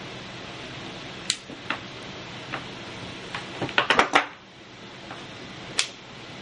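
Metal hand tools, a multitool and channel-lock pliers, clicking and clinking as they are handled and set down on a table, with a quick cluster of loud clacks about four seconds in and a few single clicks around it. A steady hiss runs underneath.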